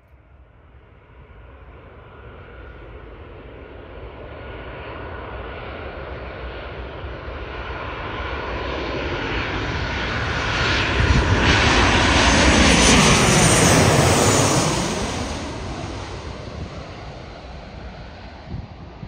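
Twin-engine jet airliner on final approach with its gear down, passing low overhead. The engine noise swells steadily to a peak about 12 to 14 seconds in, sweeps with a whooshing change in pitch as it goes over, then fades away.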